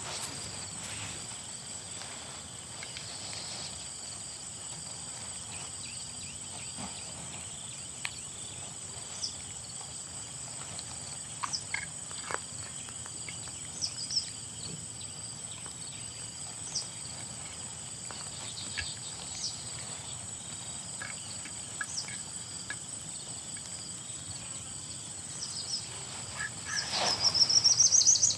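Steady high-pitched insect drone, with scattered light clicks and taps. About a second before the end comes a louder burst of noise with a quick rising chirp.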